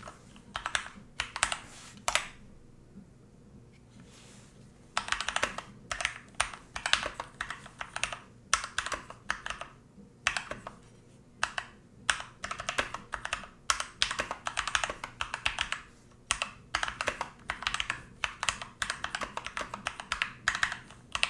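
Typing on a Keychron K2 V2 mechanical keyboard, its switches taken by the owner for browns: runs of quick, clacky keystrokes, with a pause of about two and a half seconds after a couple of seconds in.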